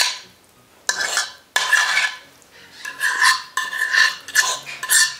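Dog food being scraped by hand from a ceramic plate into a stainless steel bowl: a string of short scraping strokes against the dishes, with a ringing tone from the dishes under the strokes.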